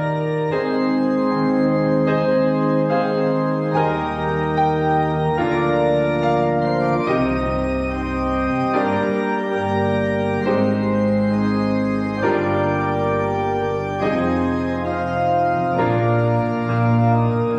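Organ playing slow, sustained chords with bass notes underneath, the chords changing every second or two.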